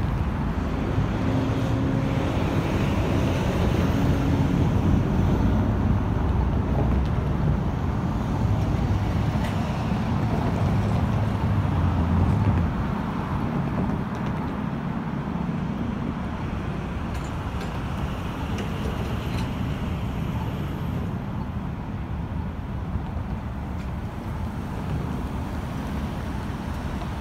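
Street traffic at a signalled intersection: a steady low engine rumble that drops away suddenly about twelve seconds in, leaving a lighter hum of passing road traffic.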